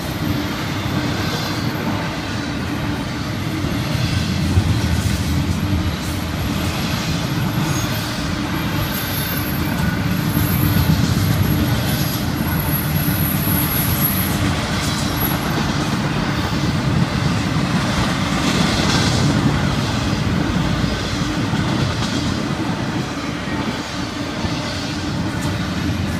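Florida East Coast Railway double-stack intermodal freight cars rolling past: a steady rumble of steel wheels on the rails with rattling clatter. A faint, thin wheel squeal rides over it for a few seconds about a third of the way in.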